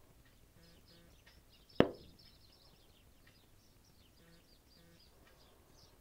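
Faint chirps of small birds, heard through a window, with one sharp knock about two seconds in that is much the loudest sound.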